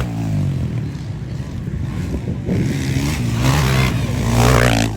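Dirt bike engines running and revving, their pitch rising and falling.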